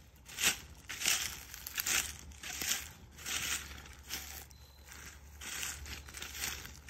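Footsteps crunching through dry fallen leaves at a walking pace, about two steps a second.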